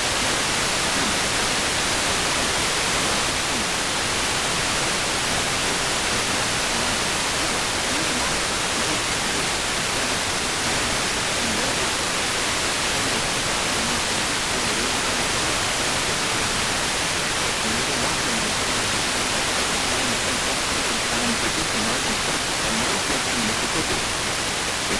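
Steady hiss of radio static from a receiver between alert broadcasts.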